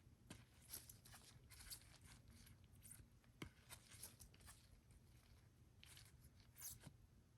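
Faint rustling and sliding of trading cards being handled, with a few soft taps, over a low steady room hum.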